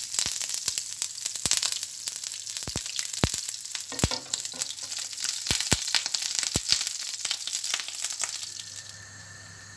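Butter and vegetable oil sizzling in a hot frying pan, a steady hiss with sharp pops and crackles as the butter melts and foams. The sizzle drops away about nine seconds in.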